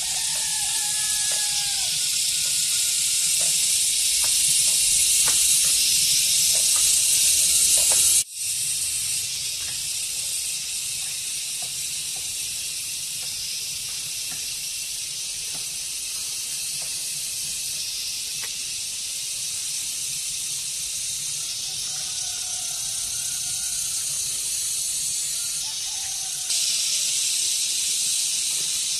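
Steady high hiss of an insect chorus, such as cicadas, with a few short bird calls over it. The hiss cuts out for an instant about eight seconds in.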